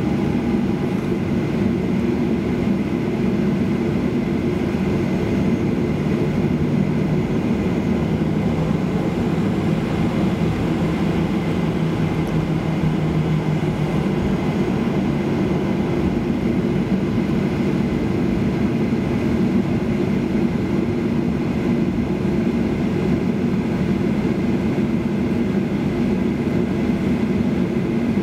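Steady cabin noise inside a Boeing 737-800 taxiing after landing: the engines at idle and the air-conditioning, an even low hum.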